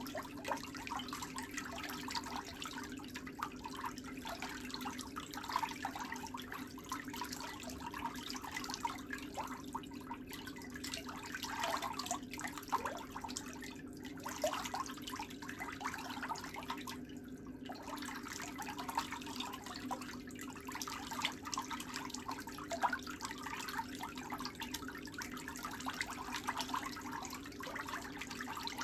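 Fine metal nail tool scraping and picking along the edge and under a thickened big toenail, many small irregular scratches and ticks, over a steady low hum.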